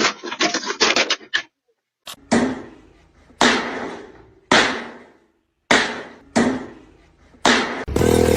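A series of sharp blows, about seven at roughly one-second intervals, each ringing briefly as it fades. Near the end a loud, steady engine starts running.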